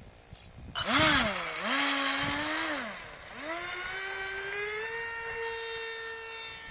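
Radjet 800 RC plane's 2200KV brushless electric motor and propeller whining at takeoff. It throttles up loudly about a second in, dips in pitch and holds, drops away near three seconds, then winds up again to a steady high whine as the plane climbs away.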